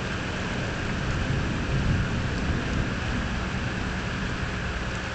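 Steady rain with a low rumble underneath, swelling slightly about two seconds in.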